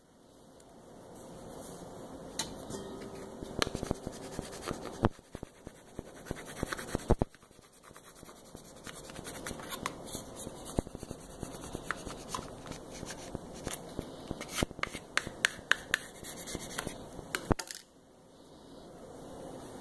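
Plastic squeegee rubbing and scraping over masking tape and a vinyl decal on a stand mixer's head, burnishing the decal down from the middle out. Scratchy strokes with scattered sharp clicks, stopping near the end.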